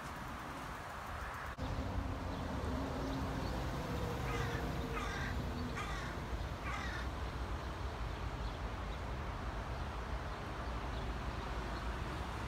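A crow cawing four times in quick succession, over a steady low background rumble.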